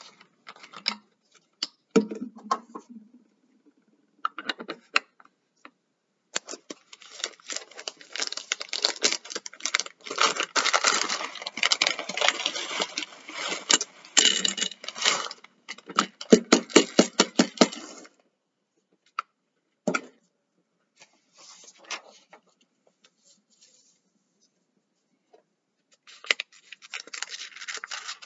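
Dried chickpeas poured from a plastic bag through a plastic funnel into a plastic water bottle: a dense run of rattling clicks as the hard beans hit the plastic, for about ten seconds, with scattered clicks of handling the bottle and bag around it. Near the end, a sheet of paper rubs and slides on the table as it is folded.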